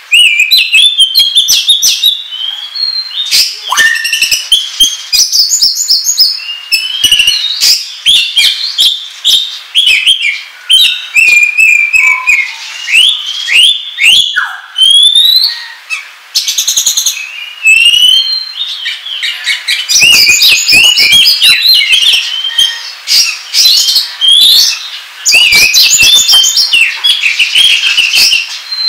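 Oriental magpie-robin (kacer) singing in an excited ngobra burst: rapid high chirps, trills and whistled rising glides mixed with short harsh notes, almost without pause. This is the bird's agitated, aggressive territorial song, the kind used to provoke other magpie-robins.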